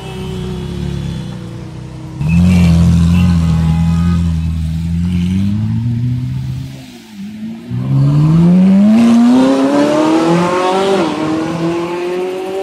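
Ferrari V8 supercars accelerating hard one after another. A loud engine note comes in suddenly about two seconds in and fades away. A second car's engine then climbs steadily in pitch from about eight seconds, with a brief dip at a gear change near the end.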